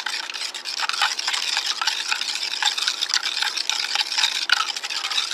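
A utensil stirring a watery black manganese dioxide slurry in a glass beaker, with quick, continuous scraping and clinking against the glass. The stirring dissolves the soluble salts out of the battery paste.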